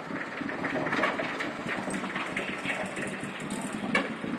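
Road traffic noise: cars passing, a steady rumble with scattered small clicks and a sharper knock about four seconds in.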